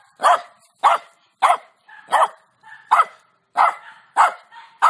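A small grey dog barking: about eight short, sharp barks at an even pace, roughly one every two-thirds of a second.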